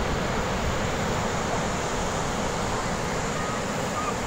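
Steady rushing noise of sea surf and wind, even throughout.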